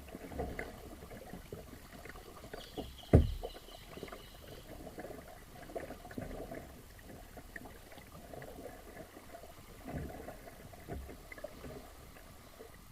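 Kayak paddling: uneven paddle strokes with water splashing and gurgling against the hull, and one sharp knock about three seconds in.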